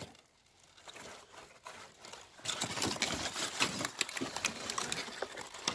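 Packing material in a cardboard box, crumpled paper and styrofoam pieces, rustling and crackling as hands shift it. There are faint scattered clicks at first, then a busy run of crackles and scrapes from about two and a half seconds in.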